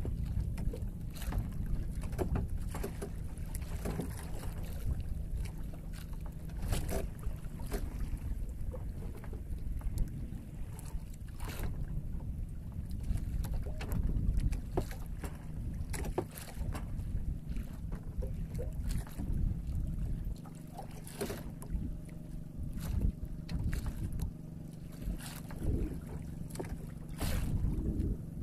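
Outrigger fishing boat's motor running steadily at sea, with wind on the microphone and scattered sharp clicks and knocks as a handline is hauled in hand over hand. The low drone eases a little about two-thirds of the way through.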